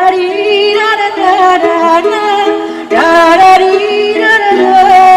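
Music: a sung melody over instrumental accompaniment.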